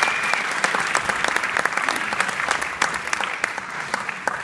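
Audience clapping, many hands at once, tapering off a little near the end.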